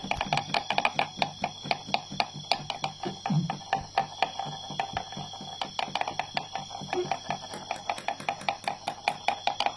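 Rapid, rhythmic wooden clicking, several strikes a second, from a stick worked against the wooden log a fighting rhinoceros beetle stands on. In Thai beetle fighting this sound is made to rouse the beetle to fight.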